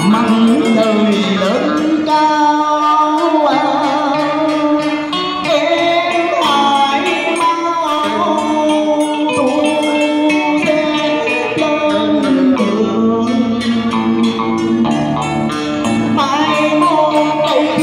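A man singing a cải lương excerpt into a microphone, his melodic line wavering with vibrato, accompanied by a plucked electric guitar.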